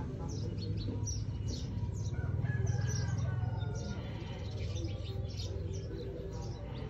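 Small birds chirping over and over, over a steady low hum.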